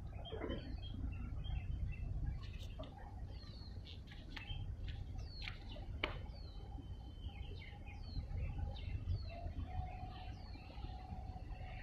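Birds calling: a short, high falling note repeated about once a second, with other sharp chirps in between, over a steady low rumble.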